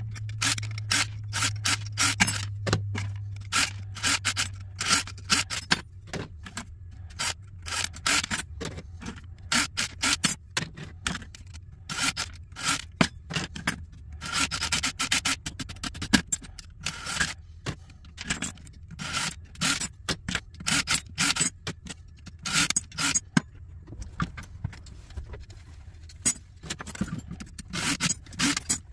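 Computer expansion cards and their metal mounting brackets clattering and scraping on a wooden workbench as they are handled, in an irregular run of short clicks and scrapes.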